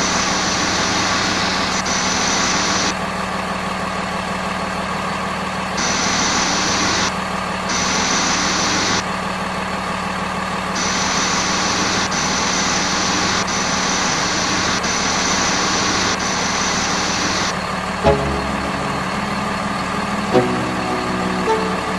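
Huina RC dump truck giving off a steady engine-like idling hum, with a high whine that switches on and off in stretches of a few seconds. A few short sharp knocks come near the end.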